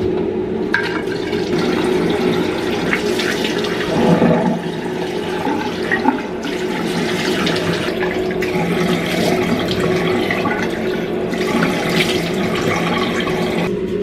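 Ventilation fan in a ship cabin's private bathroom running: a steady rushing hum with a steady low tone, briefly louder about four seconds in.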